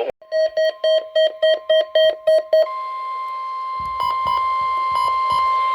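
Weather radio alert tones for a required weekly test: about ten quick electronic beeps, roughly four a second, over a steady tone near 1 kHz. The steady tone then continues alone, typical of the 1050 Hz weather radio warning alarm tone, with a few soft knocks about four seconds in.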